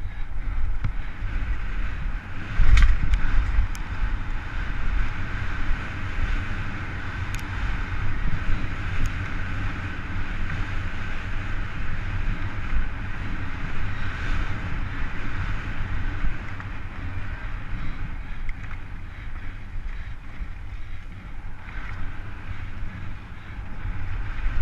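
Downhill mountain bike ridden fast on a dry dirt trail, heard from a helmet-mounted camera: wind buffeting the microphone over the steady rattle and crunch of tyres and bike on the ground, with one hard knock about three seconds in.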